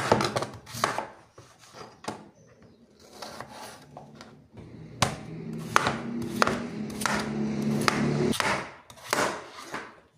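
A large kitchen knife chopping peeled raw potatoes on a plastic cutting board: irregular knocks of the blade through the potato onto the board. A low steady hum sounds under the chopping for a few seconds in the middle and stops suddenly.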